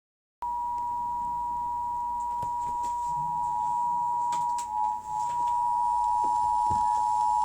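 Emergency Alert System attention signal: two steady tones sounding together, near 853 and 960 Hz. They start about half a second in, waver briefly midway and cut off after about seven seconds. The signal marks the start of an emergency alert message.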